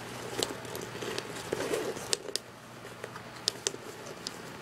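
Hands rummaging through a handbag's contents: rustling with scattered small clicks and knocks as items shift against each other.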